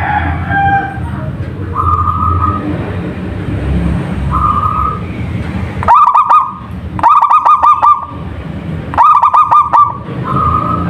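Zebra dove (perkutut) cooing: a few short single coos, then from about six seconds in three quick, stuttering coo phrases of about a second each.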